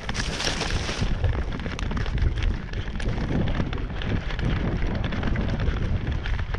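A steady low rumbling noise on the microphone, with faint scattered clicks over it.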